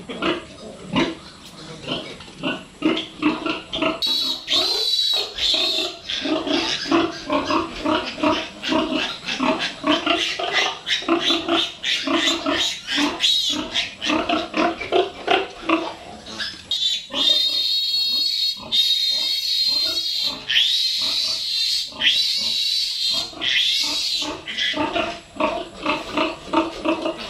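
Piglets grunting in quick runs, with shrill squeals about four seconds in and repeatedly near the end.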